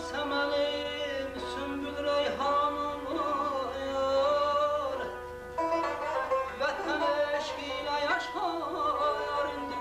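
A male mugham singer singing long, ornamented phrases over instrumental accompaniment that holds steady tones, with a short break between phrases about five and a half seconds in.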